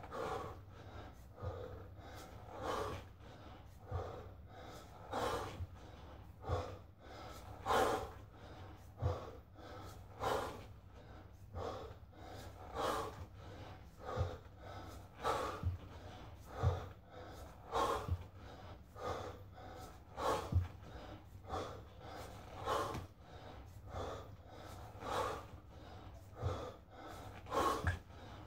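A man breathing hard in short, forceful exhalations, evenly paced about once every second and a quarter, one breath per kettlebell snatch.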